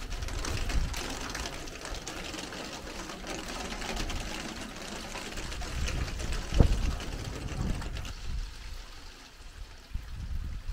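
Strong gusting wind hissing through trees and foliage, with wind buffeting the microphone as a low rumble that rises and falls. One short thump about six and a half seconds in.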